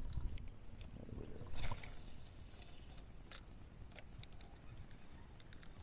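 Faint knocks and clicks of gear against a kayak, with a short rushing swish about one and a half seconds in and a sharper knock a little after three seconds.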